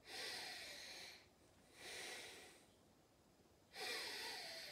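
Slow, deep yoga breaths close to the microphone: three long, hissy breaths of about a second each, with short pauses between them.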